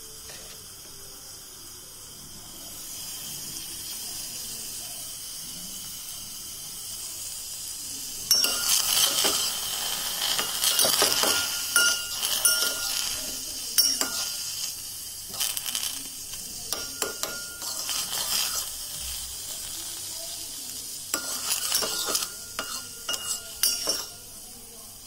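Steady hiss of agar-agar and beetroot juice simmering in a steel pot, then, from about eight seconds in, a steel spoon stirring and scraping against the pot in several spells, with metallic clinks and short rings.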